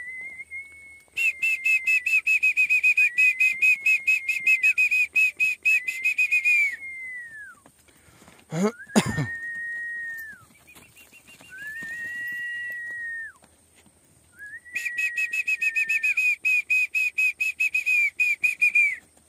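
A person whistling: long held notes that slide up at the start and fall away at the end, alternating with long fast warbling trills. A short loud sweeping sound cuts in about nine seconds in.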